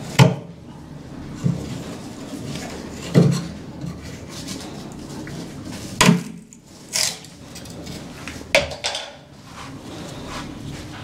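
Chisel knocked and pried into a fiberglass-skinned foam support to cut out a notch: four sharp knocks about three seconds apart, with smaller cracks and scrapes between.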